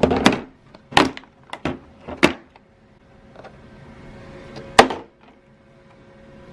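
Several sharp clacks and knocks of hard tools and toolkit parts being handled and set down as a toolkit is opened. The loudest knock comes about five seconds in, and a faint steady hum sits behind the later part.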